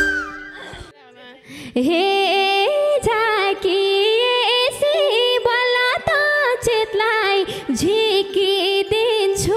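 The music drops out briefly at the start, then a woman sings a Nepali dohori folk melody in ornamented, held phrases over a steady drone.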